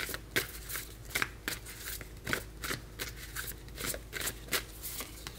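A deck of tarot cards being shuffled by hand: a quick string of short, sharp card clicks and slaps, about three or four a second.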